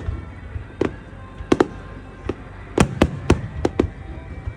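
Fireworks shells bursting overhead: a quick, irregular run of about ten sharp bangs, some doubled close together.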